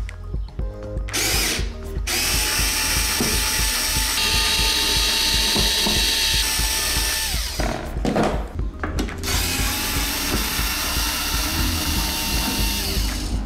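Xiaomi Mijia 3.6 V cordless electric screwdriver running in two long spells, backing screws out of a metal floodlight frame; its motor whine sags briefly as the first spell winds down about midway.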